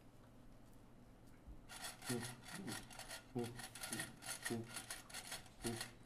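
Homemade Foley effect: a rhythmic scraping and rasping, like something rubbed or filed on wood, starting about two seconds in and pulsing roughly twice a second, each pulse with a short low squeak or grunt.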